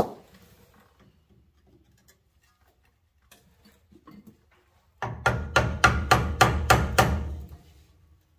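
One sharp metal knock, then, about five seconds in, a quick run of about ten hammer blows on steel, some five a second. They fall on the rusted, seized tie rod adjuster sleeve of a squarebody Chevy's steering linkage, being worked loose.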